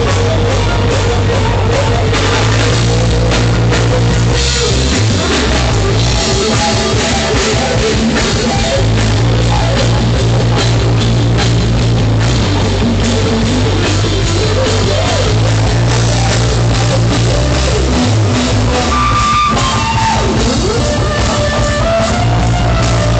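Live rock band playing loud: electric guitars, bass guitar and drum kit, with a higher melodic line standing out over the band near the end.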